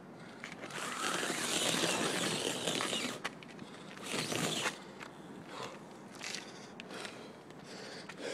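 Giant tractor tire being flipped: a rough scraping and rubbing of the rubber for about two seconds, a second shorter scrape about four seconds in, then scattered scuffs and clicks.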